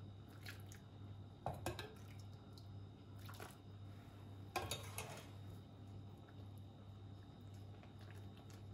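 A metal ladle scooping milk from a stainless steel pan and pouring it into a glass bowl of batter: a few soft liquid splashes and light clinks, the loudest about halfway through, over a low steady hum.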